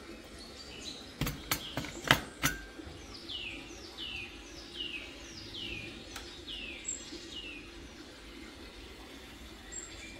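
A few sharp clicks, one after another, the loudest about two seconds in. Then a bird calls six times in a row, evenly spaced, each a short chirp falling in pitch.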